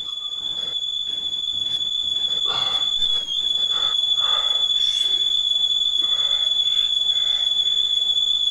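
A steady high-pitched electronic tone like a ringing whine, held throughout and wavering briefly in pitch about three seconds in, while faint soft sounds pass beneath it.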